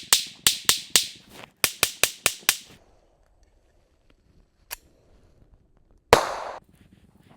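Smith & Wesson M&P 22 Compact pistol firing a rapid string of about ten .22 LR shots, roughly four a second, emptying a ten-round magazine into a tree trunk. After a pause there is a faint click, then one louder sharp noise near the end.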